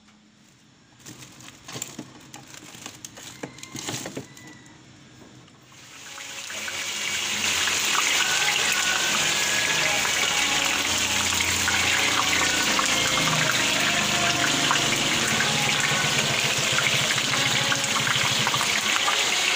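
A whole fish deep-frying in hot oil in a pan, the oil sizzling and crackling loudly as it is ladled over the fish. The sizzle comes up about six seconds in and holds steady; before it come a few clicks and knocks.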